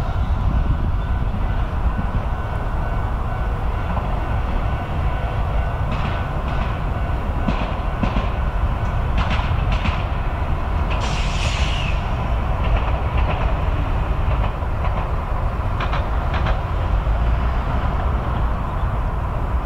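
Hankai Line streetcar running past on its rails: a steady low rumble with sharp wheel clicks over the track. There is a brief high-pitched hiss or squeal about eleven seconds in.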